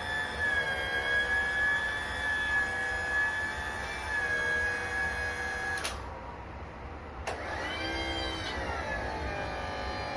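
Freshly timed Mercury two-stroke outboard engine revving high and steady, then dropping suddenly about six seconds in, followed by a quick rev that rises and falls in pitch before settling steady again.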